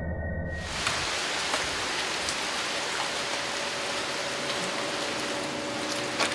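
Steady rain from a nor'easter, an even hiss with a few sharp drop taps. It cuts in about half a second in, as a low droning synth tone ends.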